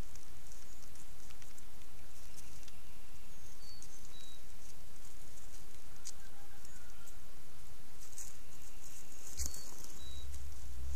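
Wild turkey foraging in dry leaf litter on burned ground: faint scattered ticks and scratches of its steps and pecking. Under it runs a steady low rumble and hiss, which swells near the end, and there are a few short high chirps.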